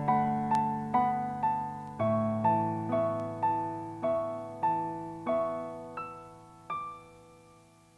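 Electronic keyboard with a piano sound playing a steady arpeggiated pattern over held bass notes, about two notes a second. The notes slow toward the end, and the last one, about seven seconds in, rings out and fades.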